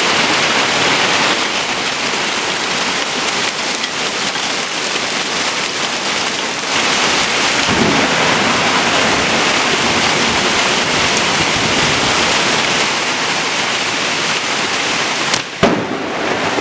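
Heavy rain pouring down steadily in a thunderstorm, with a sudden loud sharp sound near the end.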